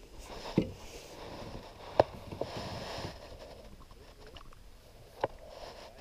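A few sharp, light knocks among soft rustling as fishing gear and the paddle are handled against the hull of a plastic kayak.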